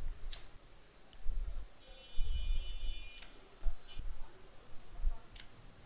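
Computer mouse clicking: a few sharp single clicks a second or two apart, with dull low thuds between them.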